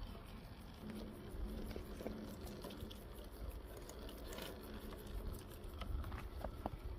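Radio-controlled rock crawler with a Hobbywing Fusion 2300kV brushless motor and two-speed gearbox, crawling over rock: a faint steady whine from the motor and gears, with scattered small clicks and scrapes of the tyres on stone and a low rumble that grows near the end.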